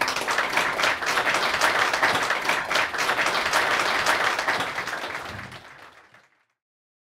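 Audience applauding, many hands clapping together; the clapping fades out near the end.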